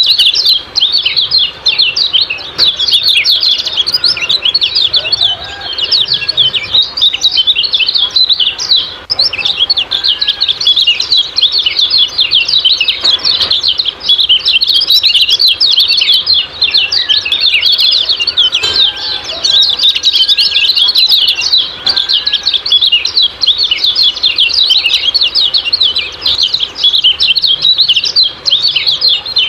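Kecial kuning songbird giving a fast, unbroken stream of sharp 'ciak-ciak' chirps, with a few fainter, lower whistles here and there. This is the bird's agitated, full-voiced calling that keepers play to set other kecial kuning calling.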